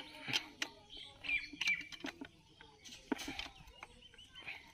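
Birds chirping in short, rapid calls throughout. Over them come a few sharp metallic clicks and clinks from hand tools and engine parts being handled, loudest about a third of a second in and again past the three-second mark.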